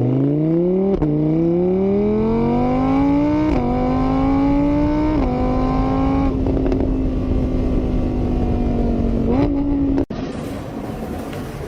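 A vehicle engine accelerating through the gears: the pitch climbs, drops at each of three shifts, then holds steady before cutting off suddenly near the end.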